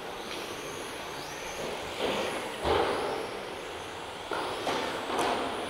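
Electric RC touring cars with 17.5-turn brushless motors racing, their motors whining faintly up and down in pitch. Several louder rushes of noise and a thump about halfway through.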